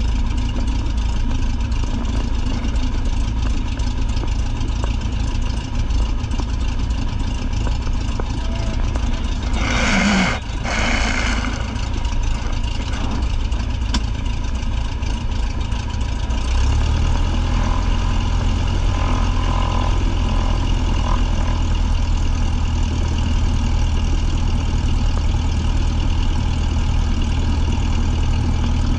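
Single-engine light airplane's piston engine running at low taxi power, heard from inside the cockpit as a steady drone. About ten seconds in there are two brief bursts of hiss, and a little past halfway the engine note steps up and stays stronger as power is added.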